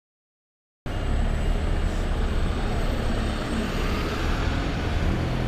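Silence, then about a second in a steady low rumble of a double-decker hybrid bus's drivetrain and engine running, with street noise cutting in abruptly.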